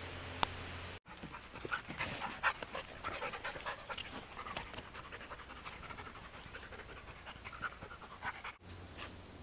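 A Wirehaired Pointing Griffon panting quickly and irregularly close to the microphone. The panting starts abruptly about a second in and is cut off abruptly near the end.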